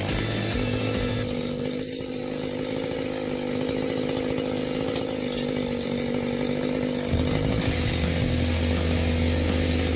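Chainsaw engine running steadily at high revs with a constant whine. About seven seconds in, a deeper rumble joins and the sound gets a little louder.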